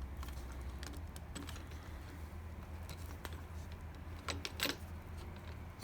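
Light clicks and taps of metal parts being handled on a Ryobi drill press as its chuck and bit are worked, with a few sharper clicks about four and a half seconds in, over a steady low hum.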